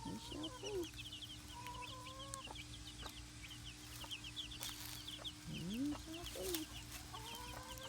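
Baby chicks peeping rapidly and without pause, high and short. A few longer, lower clucking calls from adult hens come through near the start, about two seconds in, and again around six seconds.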